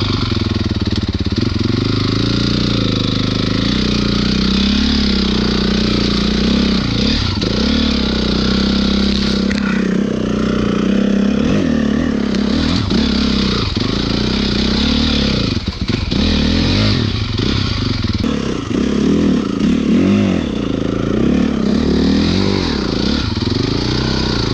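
Honda CRF450R single-cylinder four-stroke dirt bike engine running under way, its pitch rising and falling over and over as the throttle is worked. There is a brief drop in level about sixteen seconds in.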